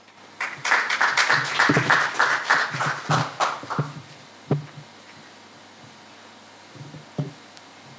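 Audience applauding for about three and a half seconds, then dying away, followed by a couple of single knocks.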